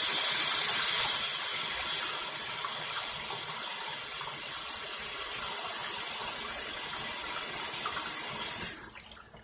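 Kitchen tap running into a sink while hands are washed under it. The water drops a little in level about a second in and is turned off shortly before the end.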